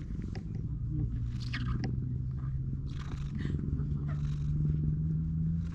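Domestic cat purring close to the microphone, a steady low hum, while being stroked, with soft rustles of a hand moving through its fur a few times.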